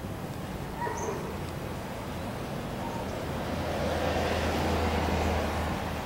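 A car passes, its sound swelling in the second half and fading near the end, over steady low traffic hum. A few short bird chirps sound about a second in.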